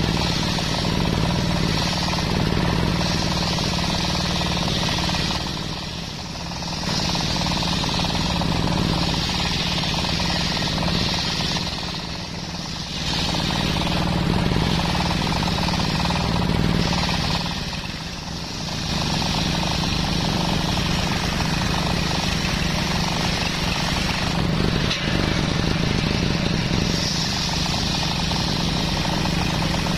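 Belt-driven table circular saw ripping a teak log lengthwise: a steady running hum under a loud, harsh cutting noise. Three times the cutting noise eases off briefly and then comes back.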